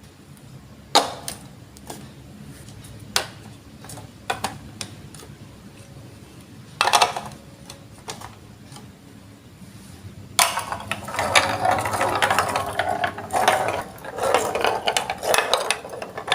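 Lego Duplo plastic bricks being handled: a few separate clicks and knocks, then a dense clattering rattle for several seconds near the end.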